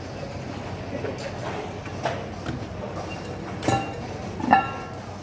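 An iron poker rod clanking against the iron rim of a glowing fire hole in the floor, three ringing metal strikes about two, three and a half and four and a half seconds in, the last the loudest, over steady background noise.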